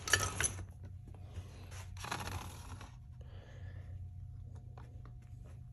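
Parts being moved on a steel diamond-plate workbench: a few sharp clicks at the start and a longer scrape about two seconds in as the aluminium cylinder head and digital scale are shifted, over a low steady hum.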